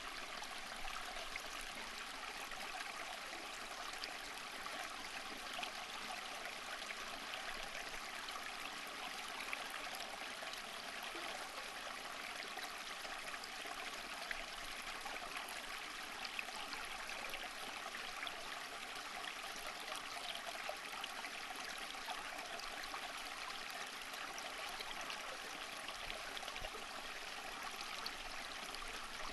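Running water, a steady rushing sound made of many small splashes and trickles, with no change in level or character.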